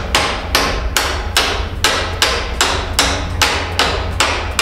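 Hammer blows driving a shim in, a steady run of sharp strikes at about two to three a second.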